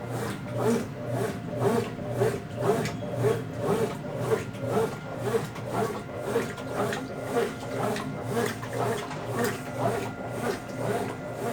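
Consul Facilite CWC10 top-loading washing machine agitating a load of bedding and towels in its wash cycle: a regular back-and-forth churning at about two strokes a second over a steady motor hum.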